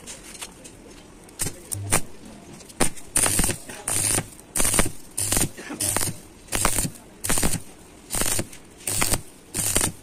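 Stick (arc) welding on the end of a truck gearbox mainshaft: the arc is struck in a dozen or so short bursts, roughly one every two-thirds of a second, starting about a second and a half in. Each burst carries a low hum from the welder alongside the hiss of the arc.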